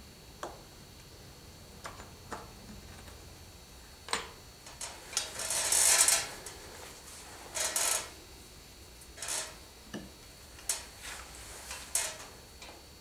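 Handling noises close to the microphone: scattered light clicks and taps, with two short rasping rustles a little past the middle, the first the loudest, over a faint steady high whine.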